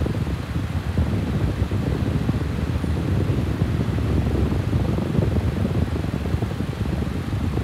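Steady low rumble of moving air, even and unbroken, with no distinct clicks or rhythm.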